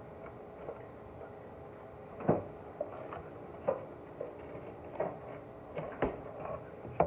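Knocks and taps of a measuring cup as flour is scooped into it, about five sharp hits spread over several seconds.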